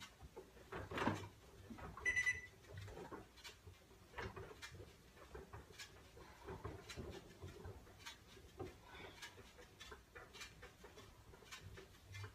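Elliptical trainer in use, giving faint, irregular clicks and knocks. A short, high beep sounds once about two seconds in.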